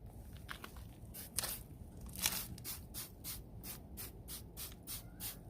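Hand trigger spray bottle of exhaust cleaner being pumped onto a motorcycle's downpipes: short hissing squirts, a few scattered ones, then a quick steady run of about three to four a second.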